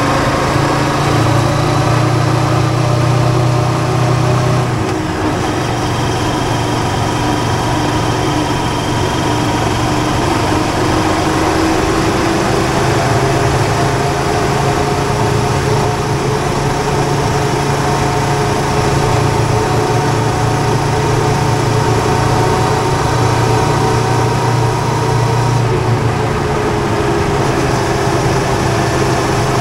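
Mash B-Side sidecar motorcycle's engine running steadily at road speed, its pitch easing slightly down and back up a couple of times, with wind and road rush underneath.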